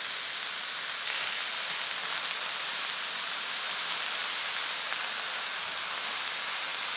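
Whole prawns sizzling in hot oil in a wok: a steady frying hiss that gets a little louder about a second in.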